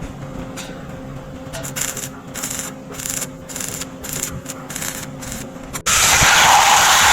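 Rhythmic hand rubbing or scraping strokes, a few a second, of a tool worked back and forth over a rough surface. Near the end it cuts abruptly to a loud, steady rushing noise.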